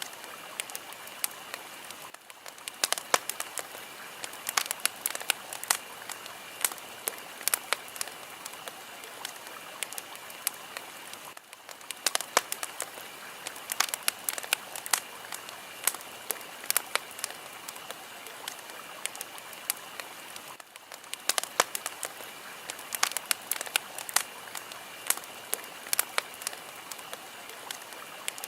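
A fire crackling: a steady hiss with frequent sharp pops and snaps, thinning into a brief lull about every nine seconds.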